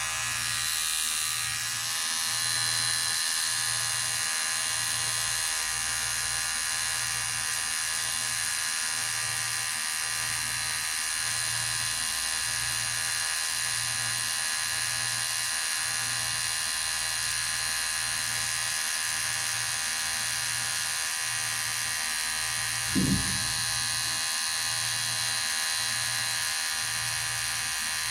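Electric hair clipper running with a steady buzz, with a low hum under it that pulses about once a second. A short low thump sounds once, late on.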